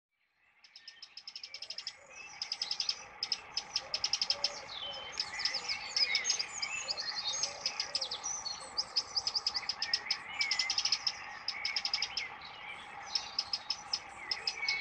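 Dawn chorus of several songbirds: fast, rapidly repeated trills and short sliding chirps overlapping, fading in from silence over the first second.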